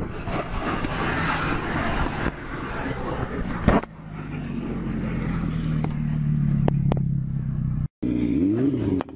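Motorcycle crash audio: a broad noisy rush, a single sharp knock nearly four seconds in, then a motorcycle engine running steadily. After a sudden cut near the end, an engine rises and falls in pitch.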